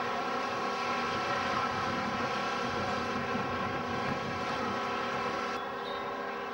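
Aircraft engine running steadily, a whine made of many held tones; its higher part drops away about five and a half seconds in.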